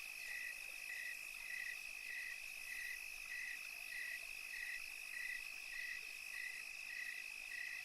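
Crickets chirping: a steady, unbroken high-pitched trill, with a second, slightly lower chirp repeating evenly under it about every 0.6 s.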